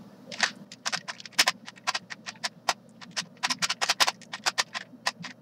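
Rubik's brand 3x3 cube being turned by hand through a scramble: an irregular run of sharp plastic clicks and clacks, several a second.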